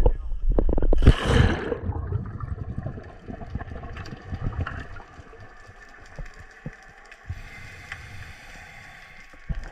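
Splashing and a rush of bubbles as the dive camera goes under the surface about a second in, then muffled underwater noise: low rumbling of moving water with scattered faint clicks and knocks.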